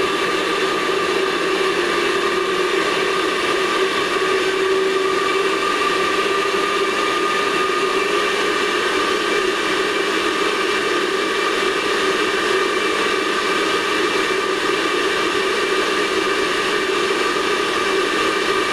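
Gas boiler combustion fan running with a steady whir, several fixed tones over an even hiss.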